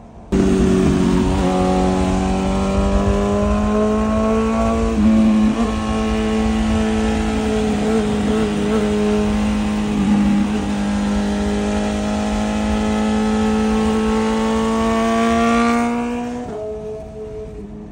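BMW S1000RR inline-four engine running loud through an Arrow titanium full exhaust at highway speed, its tone climbing slowly with brief breaks in pitch about five and ten seconds in. It cuts in suddenly at the start and fades near the end.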